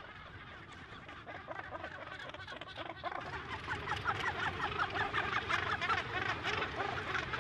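Northern gannet colony calling: many short calls overlapping, growing louder about three seconds in.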